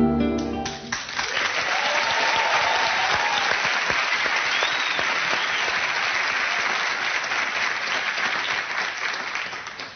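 A short stretch of music cuts off about a second in, and a large studio audience breaks into steady applause that fades near the end.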